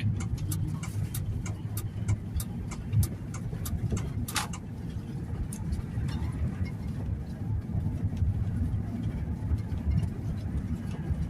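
Pickup truck driving: a steady low rumble of engine and road, with scattered light clicks and rattles.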